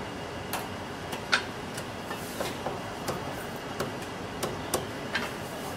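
Cleaver chopping roast meat on a thick wooden chopping block: a series of sharp, irregularly spaced knocks, over steady street noise.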